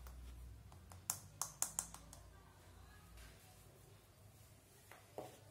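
A metal spoon lightly clinking against steel: a quick run of four or five sharp clicks about a second in, and one or two more near the end.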